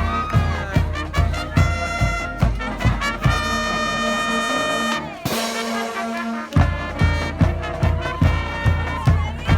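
High school marching band playing, brass over a steady drum beat. About three seconds in the brass holds a long chord, a cymbal crashes just past five seconds, and the drums drop out briefly before the beat comes back about six and a half seconds in.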